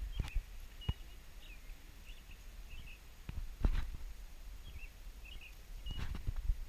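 Birds chirping in short, repeated calls, over a few soft knocks and rubbing sounds as fingers work through loose soil and lift out a coin; the loudest knock comes a little past halfway.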